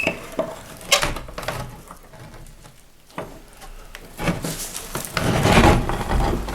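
Handling noise from someone moving quietly: a few sharp knocks and clicks in the first second, then a longer rough rustling scrape, loudest near the end.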